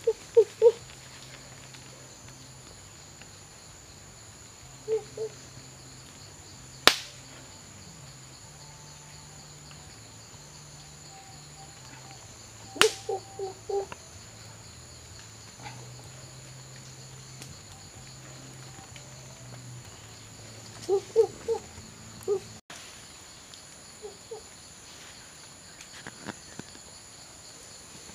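Rainforest insects buzzing steadily in high-pitched tones. Several times this is broken by short runs of loud, quick pitched pulses, four or five a second, and twice by a single sharp crack, about seven and thirteen seconds in.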